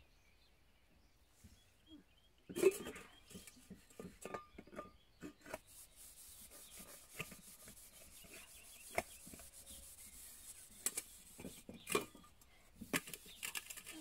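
A soot-blackened metal pot being scoured by hand with wood ash: irregular rubbing and scraping that starts about two and a half seconds in, with short clicks and knocks from the pot among it, the loudest a sharp knock just as it begins.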